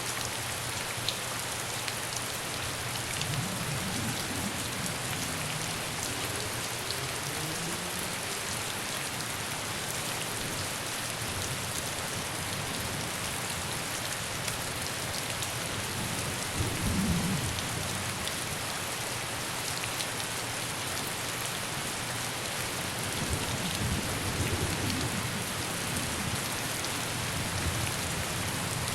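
Steady heavy rain hissing on hard surfaces. Low rumbles swell up three times over it, and the one about halfway through is the loudest.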